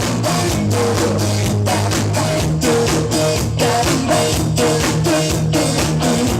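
Rock band playing live: a repeating guitar figure over a held bass line and a steady drum-kit beat.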